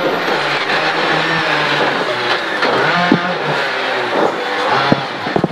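Rally car engine heard from inside the cockpit, its revs dropping and climbing again through gear changes as it takes a tight left hairpin on a dirt stage. A few sharp knocks come through, loudest near the end.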